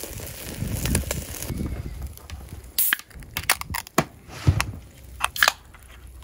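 An aluminium beer can is cracked open by its pull-tab with a short hiss about three seconds in, followed by several sharp metallic clicks and another short hiss about five and a half seconds in. A grill sizzles faintly in the first moments.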